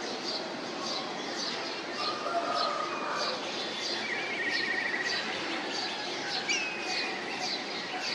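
Outdoor birdsong: several birds calling, one giving a short high chirp over and over about twice a second, with a fast trill about four seconds in and a brief whistle later, over a steady background hiss of outdoor noise.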